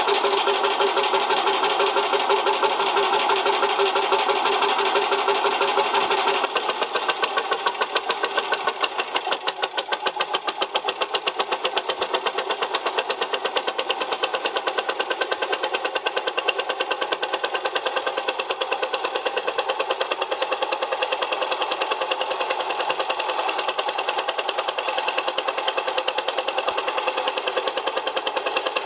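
Lanz Bulldog tractor's single-cylinder two-stroke hot-bulb engine running with a fast, even knocking beat. About six seconds in, the sound changes and becomes slightly quieter, with the separate beats more distinct.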